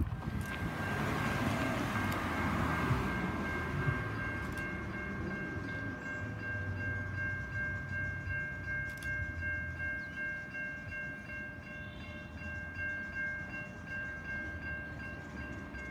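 Level-crossing warning bells (Safetran Type 3 electronic bells) ringing continuously while the crossing is active, a high ringing tone that pulses slightly. A low rumble runs beneath it.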